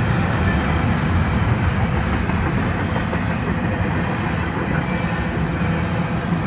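Florida East Coast Railway intermodal freight cars (container well cars and flatcars) rolling past: a steady rumble of steel wheels on the rails.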